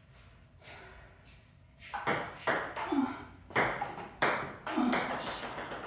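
Table tennis rally: a celluloid-type ball clicking off paddles and the table, about two hits a second, starting about two seconds in.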